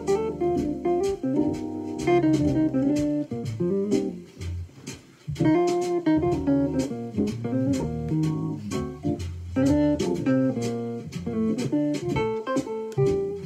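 Jazz solo on an Akai EWI electronic wind instrument: quick runs of notes over a jazz backing track with bass and drums. The line thins out briefly about four to five seconds in.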